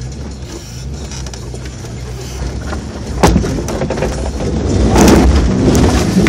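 Four-wheel-drive's engine pulling at low speed up a rocky track, heard from inside the cabin. A sharp knock comes about three seconds in, and near the end the engine works harder and gets louder, amid jolts and knocks as the vehicle climbs over rocks.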